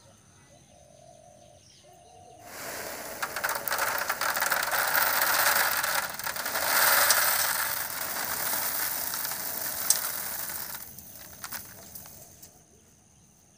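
Sand-roasted chickpeas pouring off a bamboo winnowing tray into a bowl: a steady rattling rush of dry grains for about eight seconds, starting a couple of seconds in, then a few scattered clicks as the last chickpeas drop.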